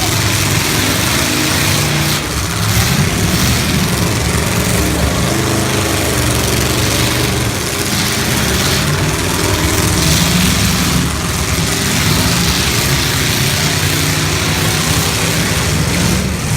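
Several full-size demolition derby car engines running together, revving up and down.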